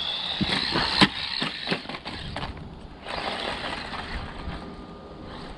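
Small electric RC truck being driven hard: its motor whines and rises in pitch while its tyres rattle over the ground, with a run of knocks, the sharpest about a second in, as it takes hits, then a second burst of running about three seconds in.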